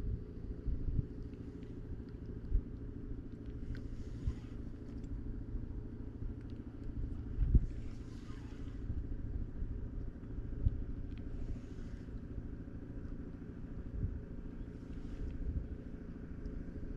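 Steady low rumble of wind buffeting the microphone on open water, with a soft hissing swish every few seconds.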